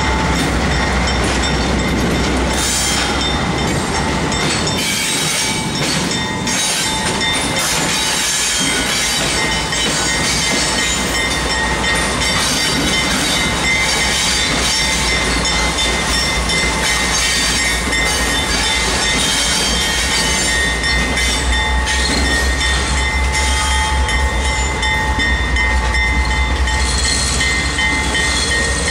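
CSX GE diesel-electric locomotives running on the move as they roll past and pull away. There is a steady low engine rumble and rail noise, with a steady high-pitched ring over it.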